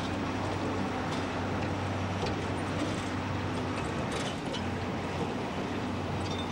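Narrow-gauge diesel locomotive of a peat bog railway running steadily: a low engine drone and hum with light clicks from the wagons and track.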